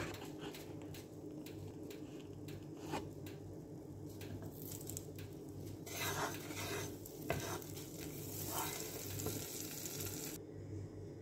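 Butter sizzling as it melts in a non-stick pan, with a wooden spatula scraping and knocking against the pan at irregular moments. The sizzle swells about six seconds in and drops away suddenly near the end, over a steady low hum.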